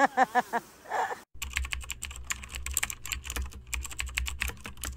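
Rapid, irregular clicking with a steady low hum underneath, after a short stretch of a voice that is cut off about a second in.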